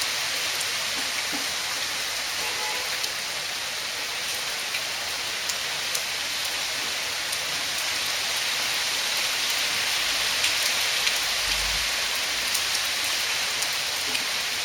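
Heavy rain falling steadily as an even hiss, with scattered sharp ticks of drops striking a surface. A brief low rumble comes about two thirds of the way through.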